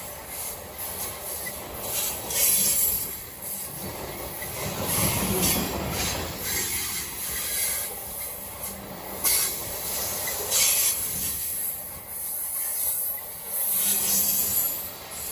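Covered hopper cars of a freight grain train rolling past, their steel wheels on the rail giving a high hiss and squeal that swells and fades unevenly, with some clatter.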